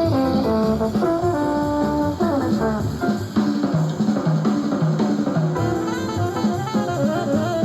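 Jazz with a horn melody and a drum kit, an FM broadcast playing through the speaker of a KLH Model 8 tube FM radio.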